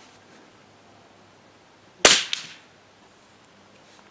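A single .22 LR rifle shot about two seconds in: one sharp crack with a short fading tail.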